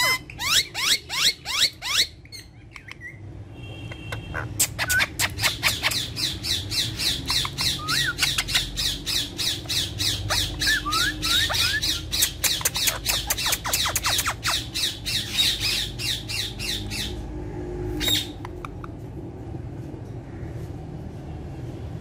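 Ringneck parakeets giving harsh, rapid screeching calls. A short run comes right at the start, then after a pause a long unbroken series of about four or five calls a second, and one last call a little later.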